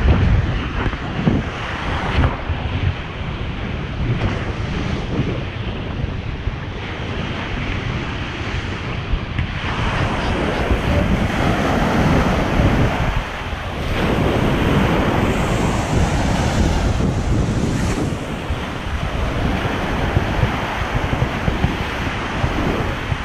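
Lake Superior waves breaking and washing up on a sandy beach, the surf swelling and easing, with wind buffeting the microphone.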